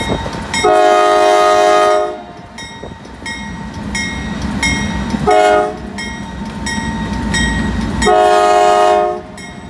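Norfolk Southern Dash 9 diesel locomotive's air horn sounding three blasts, long, short, long, each a steady multi-note chord. A low diesel rumble runs between the blasts.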